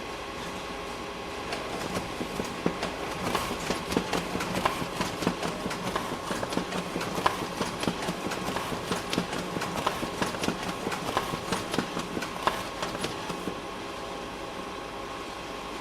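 Copy machine running: a steady mechanical hum with a fixed whine, joined about a second and a half in by a rapid, irregular clicking and clattering that stops a couple of seconds before the end, leaving the hum alone.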